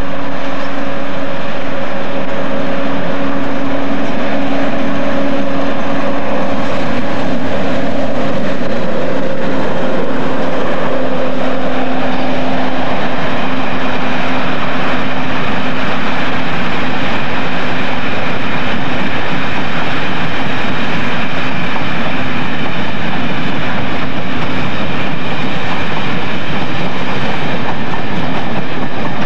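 English Electric Class 50 diesel locomotive passing with its train: a steady engine tone, then, from about ten seconds in, the rumble and clatter of the coaches' wheels on the rails as they go by.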